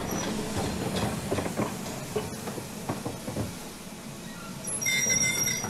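Cartoon steam-train sound effect: rumbling chugging that fades away over the first few seconds, then a short steam-whistle toot near the end.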